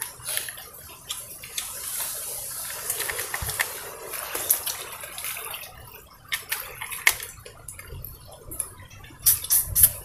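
Irregular sharp clicks of small shells being handled and picked apart as cooked hermit crabs are eaten by hand, with a quick run of loud clicks near the end.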